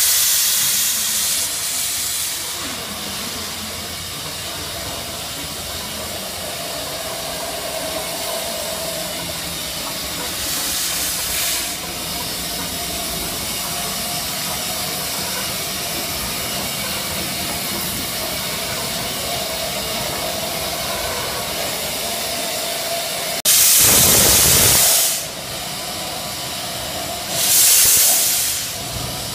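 Steam hissing steadily from the Romney, Hythe & Dymchurch Railway's No. 8 Hurricane, a 15-inch-gauge 4-6-2 steam locomotive in light steam. The steady hiss is broken by four louder blasts of steam from the open cylinder drain cocks, the loudest and longest about four-fifths of the way through.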